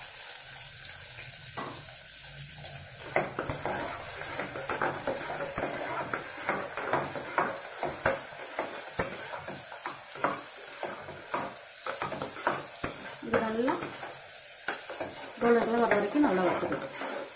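Chopped shallots frying in hot oil in an aluminium pressure cooker with a steady sizzle, stirred with a metal ladle that scrapes and clicks against the pot, more loudly near the end.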